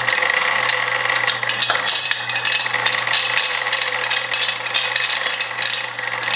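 Conveyor-belt marble lift running: marbles clatter and tick continuously against the metal brackets and chutes, over the steady hum of the motor and gearbox that drive the belt.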